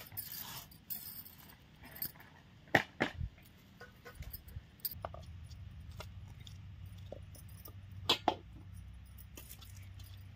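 Masala being ground for the curry: scattered light clicks and metallic clinks, the loudest a pair about three seconds in and another pair about eight seconds in. A faint low hum sets in about five seconds in.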